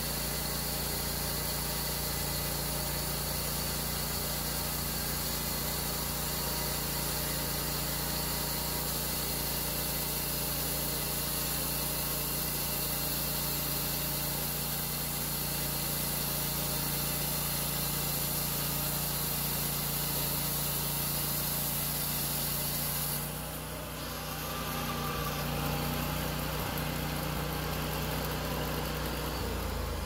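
Portable bandsaw mill running steadily: the saw head's engine hums while the band blade cuts along a log with a high hiss. About three-quarters of the way through, the high hiss drops away as the blade leaves the log, and the engine keeps running.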